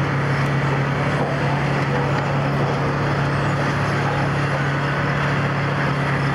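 P811S track renewal machine running, a steady engine drone with a constant low hum under a wash of machinery noise.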